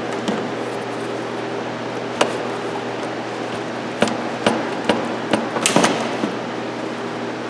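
Sharp clicks and knocks of hand tools and parts being handled in the engine bay while the air intake duct is taken off to reach the throttle body: one about two seconds in, then a cluster of about eight over the next two seconds, over a steady background hum.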